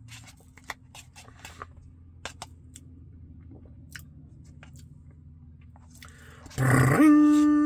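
Close-up mouth sounds of someone chewing and biting a Blizzard's ice cream and crunchy chocolate pieces: soft, scattered crunches and clicks. About a second before the end, a much louder steady held tone cuts in and steps up in pitch once.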